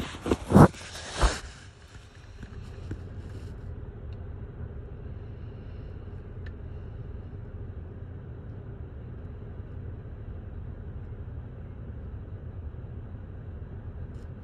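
A few sharp knocks and rustles in the first second and a half, then a steady low rumble.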